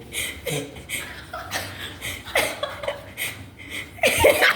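People laughing and snickering in short, repeated bursts, loudest near the end.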